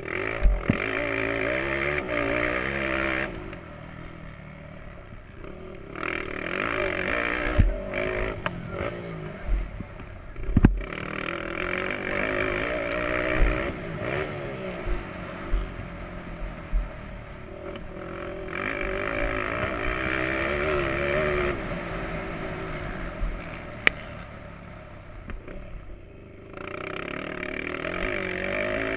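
Motocross bike engine heard from on the bike as it is ridden hard round a dirt track, revving up and easing off over and over as the rider works the throttle through the straights and turns. Several sharp knocks stand out, the loudest about ten seconds in.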